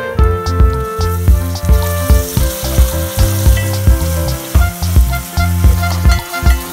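Chopped tomatoes and sliced onions sizzling in hot oil in an aluminium pot as they are stirred, the sizzle thickening about two seconds in. A background music track with a steady beat plays over it and is the loudest sound.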